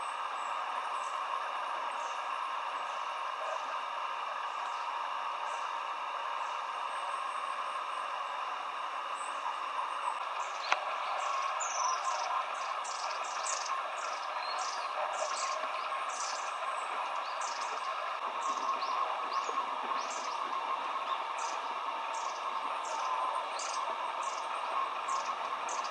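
Shallow mountain stream running steadily over stones. From about ten seconds in, a flock of long-tailed tits gives many short, high-pitched calls, with a single sharp click just before the calls begin.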